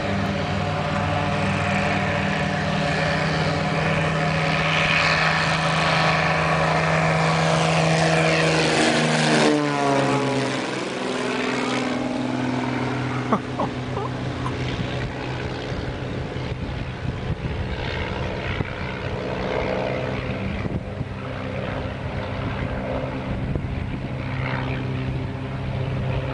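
Cessna 206's six-cylinder piston engine and propeller at full takeoff power, growing louder as the plane approaches, then dropping sharply in pitch as it passes about nine to ten seconds in. The lower drone then fades slowly as the plane climbs away.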